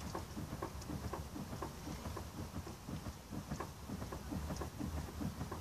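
A run of faint, irregular clicks, several a second, from the Daewoo Matiz's rear drum brake self-adjuster as the brake pedal is pressed. Each click is the adjuster lever stepping the ratchet wheel on the strut, spreading the new brake shoes out toward the drum.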